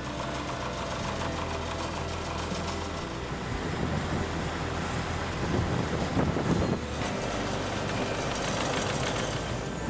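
Asphalt paver at work: its diesel engine runs steadily under a continuous mechanical clatter from the machine spreading hot asphalt, a little louder from about four seconds in.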